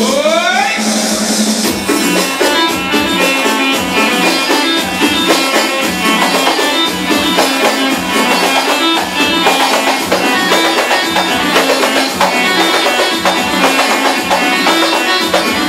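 Live party band playing dance music over a dense, steady percussion beat. It opens with a rising pitch sweep in the first second.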